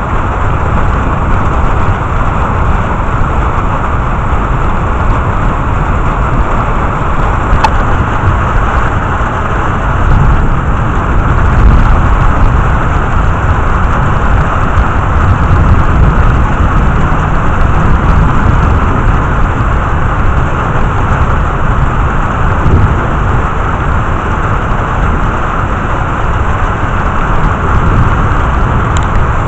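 Thunderstorm sound: a steady, loud wash of rain over a low rumble that swells for several seconds in the middle.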